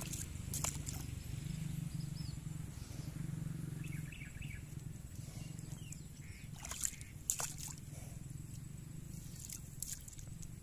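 Water buffalo wallowing in a shallow muddy pool: a few short, sharp splashes and slaps of water as they shift and flick their tails, the two loudest about seven seconds in, over a steady low outdoor rumble.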